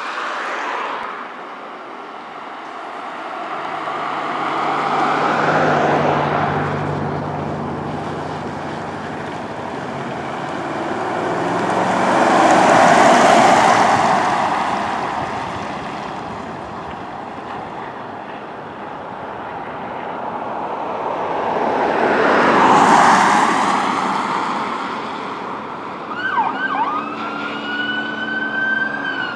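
Fire department command pickup truck's electronic siren, swelling louder as the truck approaches and passes, then fading, with the truck's engine underneath. Near the end a second siren starts with a rising wail.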